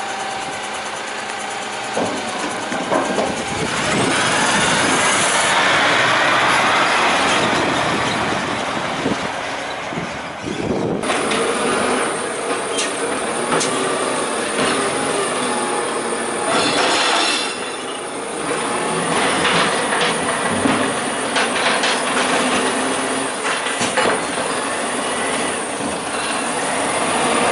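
Rubbish truck at work: engine and hydraulic lifting and compacting gear running, with a rising whine and scattered metal knocks and clanks. The sound changes abruptly about eleven seconds in.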